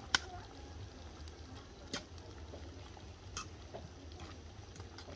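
Metal spoon stirring chicken stew in a metal pot, with three sharp clinks of the spoon against the pot over a faint background.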